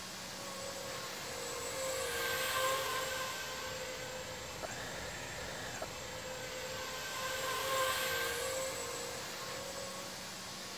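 FPV racing quadcopter's electric motors whining as it flies past twice, louder and bending in pitch on each pass.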